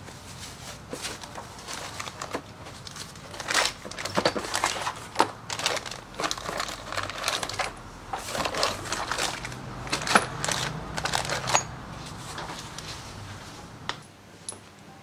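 Plastic bags and paper wrapping crinkling and rustling as parts are lifted out of a cardboard box, with sharp clicks and light metallic clinks of belt-drive primary parts. It is busiest in the middle and dies down near the end.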